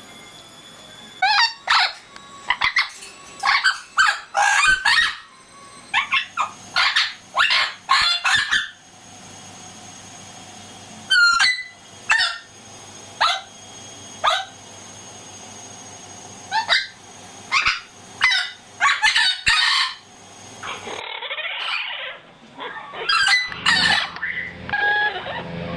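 Amazon parrot calling in bunches of short, loud, sliding whistles and squawks, its singing; in the last few seconds the calls turn harsher and noisier.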